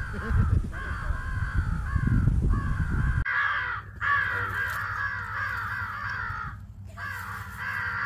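Crows cawing over and over with hardly a break, many caws following one another. A low rumble underlies the first three seconds or so and cuts off abruptly.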